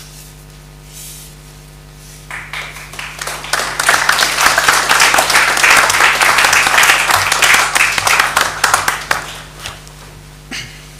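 Audience applauding for about seven seconds: it starts a couple of seconds in, swells quickly and dies away near the end.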